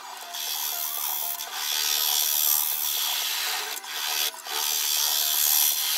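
Carbide-tipped turning tool cutting into a spinning mahogany lid blank on a wood lathe, hollowing out the lid's recess: a steady rasping scrape that breaks off briefly a few times as the tool lifts.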